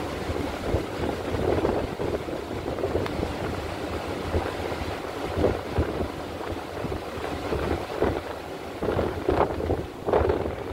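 Wind buffeting the microphone: a steady noisy rumble that swells in gusts, most strongly near the end.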